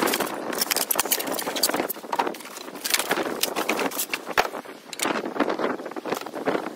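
Cardboard box and polystyrene foam packing being pulled apart and handled: rustling and scraping with a run of short, irregular knocks.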